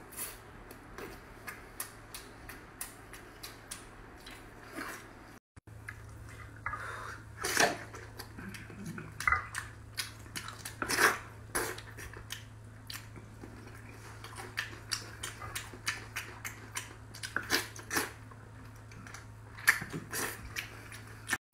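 Close-miked wet chewing, lip smacking and sucking while eating braised pork, an uneven run of sharp smacks. The sound drops out briefly about five seconds in, and after that a low steady hum runs under the eating.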